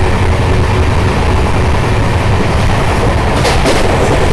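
Steady, loud low rumble and hiss of a moving vehicle, with a faint steady hum that stops about two seconds in and a few light clicks near the end.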